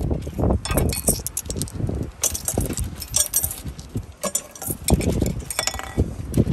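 Coins clinking in a hand and being pushed through the slot of a rusty steel cash-box post, dropping inside with several short metallic clinks in clusters.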